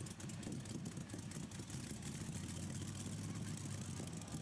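Engine of a modified pulling tractor running at low revs while on fire: a steady low hum with many small crackles.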